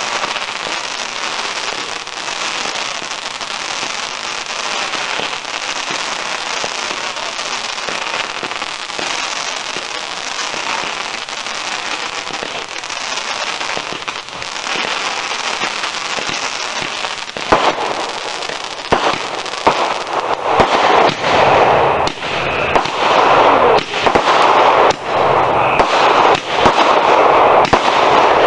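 Consumer fireworks: a dense, steady crackling at first. From about halfway in, a run of sharp bangs from aerial bursts comes louder and closer together toward the end.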